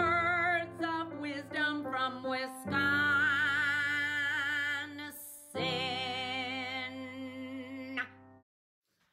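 Intro music with a woman singing long, wavering notes over a steady accompaniment, with a brief break midway; it cuts off about eight seconds in.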